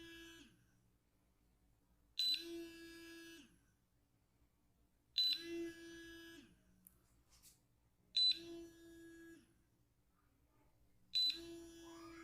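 A short beep-like tone with a sharp, bright start, sounding four times at even intervals of about three seconds, each note held for a little over a second before it dies away.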